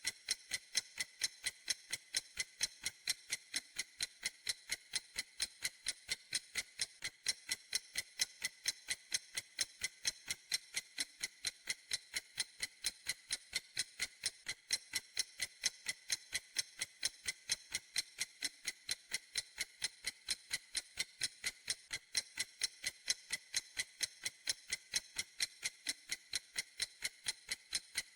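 Clock ticking: a steady, even run of crisp, high-pitched ticks.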